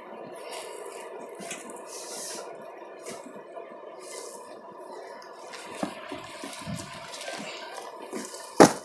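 Rustling and handling noise of an embroidered chudithar set being lifted, unfolded and spread out on a counter, with a louder, sharper rustle near the end.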